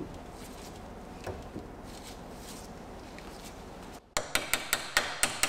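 A few faint clicks, then, after a brief dropout about four seconds in, a quick series of hammer blows, about five a second, on the old axle nut threaded onto the end of the front CV axle, knocking the axle back into the hub.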